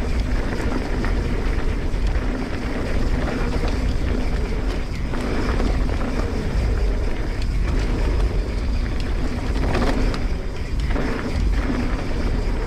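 Wind buffeting the microphone over the rumble of a Transition Sentinel full-suspension mountain bike riding a dirt trail, with a few short clatters from bumps.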